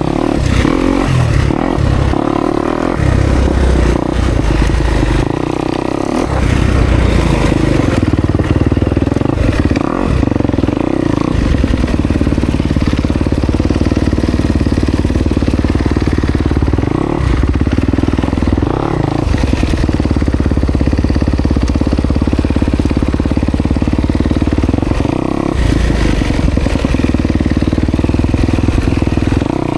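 Kawasaki KX250X dirt bike engine running under load on a trail ride, revs rising and falling with the throttle.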